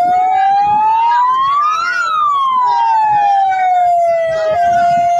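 Fire engine siren wailing: one slow rise and fall in pitch, then holding a steady tone near the end.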